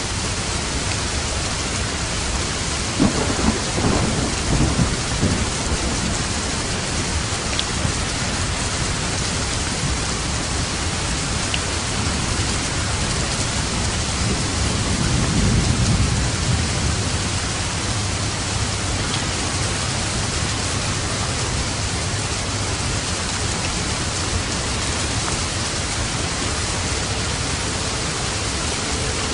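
Steady heavy rain falling, with thunder: a few sharp cracks about three seconds in, then a low rolling rumble that swells and fades around the middle.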